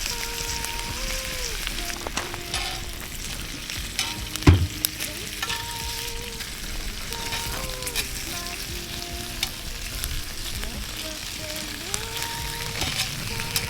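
Burning larch log stove crackling and sizzling steadily, with frequent sharp pops and a heavier knock about four and a half seconds in.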